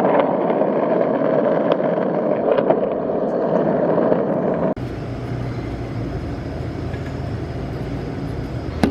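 Motor vehicle noise, a steady rush with a few light clicks. About halfway through it changes abruptly to a lower, steadier engine hum.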